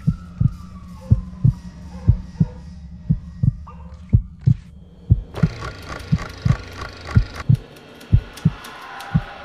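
Heartbeat-like low thumps on a film soundtrack, about two a second over a steady low drone. A falling siren-like tone fades out in the first second or so, and a busier layer of clicks and tones joins about five seconds in.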